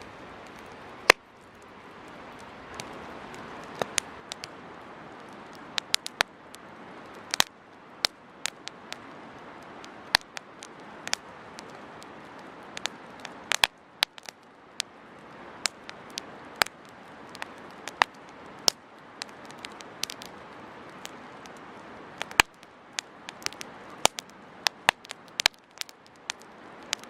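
Wood campfire burning, crackling and popping at irregular intervals over a soft hiss of flames, with one sharp pop about a second in the loudest.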